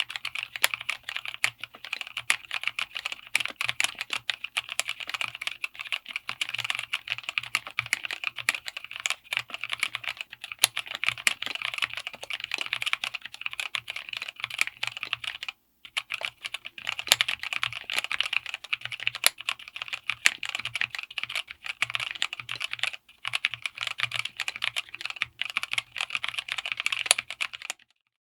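Fast typing on a 60% mechanical keyboard fitted with vintage Taiwan Jet Axis white/clear linear switches, in an FR4 plate and aluminium case. The keys make a dense, continuous stream of clacks, with a brief break a little past halfway.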